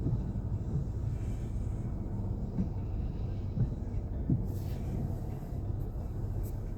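Nissan Pathfinder driving at road speed, heard from inside the cabin: a steady low rumble of engine and tyres.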